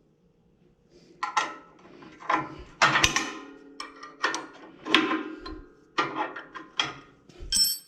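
Irregular metal clinks and knocks, some with a short ring, as a wrench works the bolts that hold the chip-size adjustment blade on a Titan BX42S wood chipper's steel housing.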